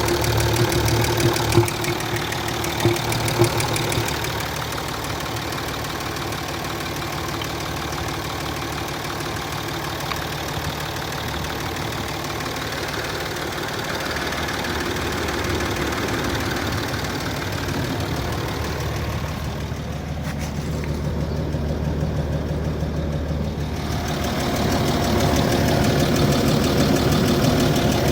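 Land Rover Discovery 3's 2.7 TDV6 V6 diesel engine running at operating temperature with a knocking noise, a knock the owner notices when the engine is hot. A few sharper knocks stand out in the first few seconds, and the engine grows louder near the end.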